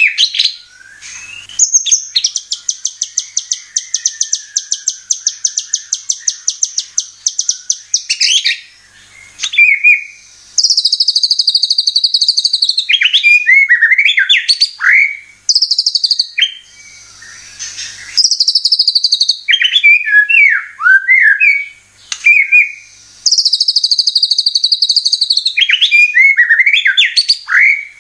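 White-rumped shama song: a long fast rattling trill of high notes, then three rounds of a buzzy high note followed by quick, varied whistled swoops, played as a lure to set caged shamas singing.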